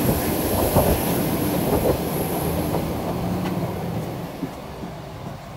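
Parked airliner's engine noise: a steady rush with a high whine, growing fainter as the aircraft doorway is entered, with a few footsteps on the metal airstair.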